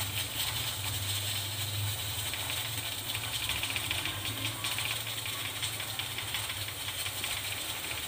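All-purpose flour being sifted through a stainless-steel mesh sieve that is shaken by hand: a steady dry hiss with fine, rapid rattling.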